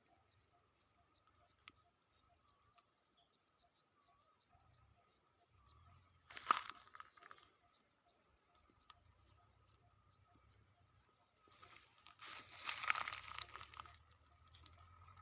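A faint, steady chorus of insects droning, with a short crunching rustle about halfway through and a longer rustle near the end, as of dry vegetation being brushed or stepped through.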